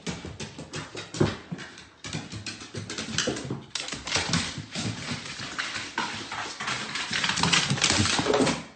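Quick, uneven patter of paws and feet on wooden stairs, many short knocks in a row that grow louder toward the end.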